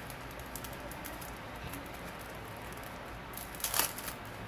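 Hands handling small parts: one brief crinkling rustle about three and a half seconds in, over a steady low hum.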